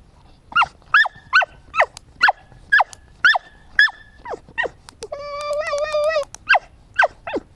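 A cocker spaniel–pug mix dog whining in a quick series of short high yelps, each dropping in pitch, about two a second. About five seconds in it gives one longer held whine, then more short yelps.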